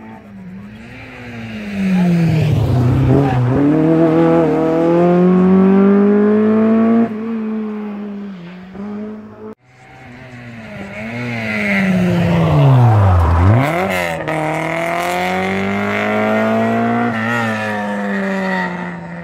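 Historic rally cars going past at speed on a closed stage, two passes. Each engine note drops sharply as the car goes by, then climbs as it accelerates away. A gear change is heard near the end.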